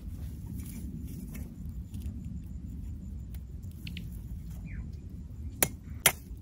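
A knife clicks sharply against a freshwater pearl mussel's shell three times near the end while the mussel is being worked open, over a steady low rumble.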